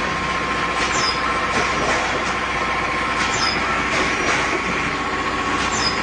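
Factory machinery running steadily, plausibly the high-frequency PVC hanger welding machine, with a steady whine and a short high falling chirp about every two and a half seconds.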